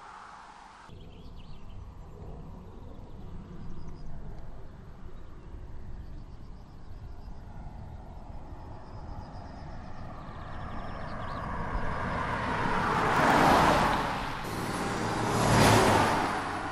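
BMW 730d (E65) with its 3.0-litre straight-six turbo diesel driving past: engine and tyre noise building slowly, then swelling twice into loud pass-bys near the end.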